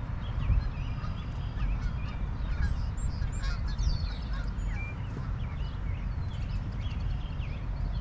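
Birds chirping and calling in many short notes, over a loud, uneven low rumble of wind on the microphone.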